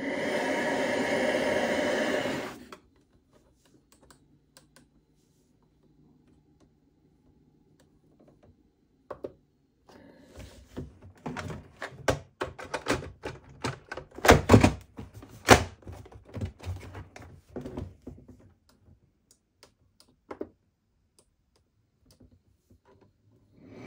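A loud steady sound cuts off sharply near three seconds in, leaving a faint low hum. From about nine seconds in comes a long irregular run of clicks and knocks, with the busiest stretch around the middle, typical of a hard plastic CPAP machine and its parts being handled.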